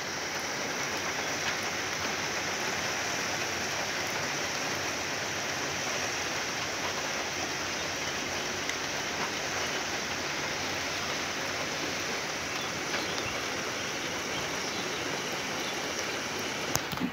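A swollen river rushing past in a steady, even roar of water, its flow risen too high to drive across.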